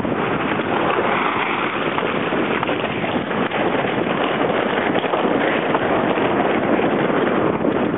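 Steady wind noise on the microphone aboard a sailboat under way.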